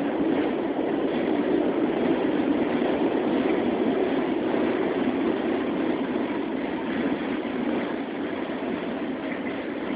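New York City subway car running on elevated track, heard from inside the car: a steady rumble of wheels on rails. It eases a little toward the end as the train comes into a station.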